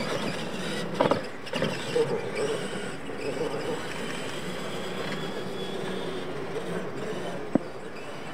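Electric R/C monster trucks racing on dirt: motor and gear whine rising and falling over the crunch of tyres. A sharp knock comes about a second in and another near the end.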